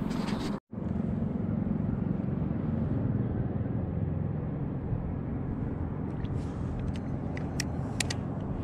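Steady low rumbling noise on the microphone, cutting out completely for a moment about half a second in, with a few light clicks near the end.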